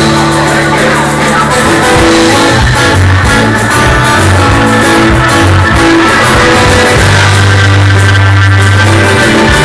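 Live rock band with acoustic guitar playing loudly, with held low notes under it; the recording is loud and rough.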